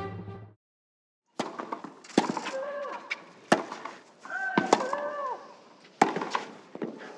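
A clay-court tennis rally: racket strings striking the ball about every one to one and a half seconds, five sharp hits in all, with a short rising-and-falling grunt from a player on two of the shots. Intro music cuts off in the first half second, before the rally sounds begin.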